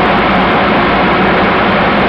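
The Pratt & Whitney R-1830 Twin Wasp radial engines of a B-24 Liberator bomber droning loudly and steadily in flight, heard from inside the plane's nose.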